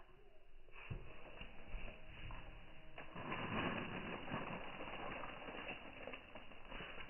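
Rustling and pattering of granular fertilizer being cast by hand from a plastic bucket onto cassava plants and soil, mixed with the brushing and steps of walking through the crop. It starts about a second in and is densest in the middle.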